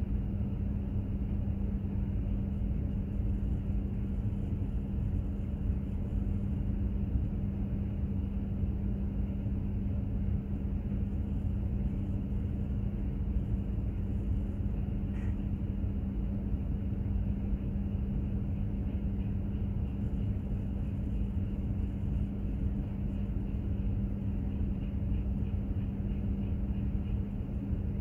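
Container ship under way: a steady low rumble from its engine and hull, with a constant droning hum.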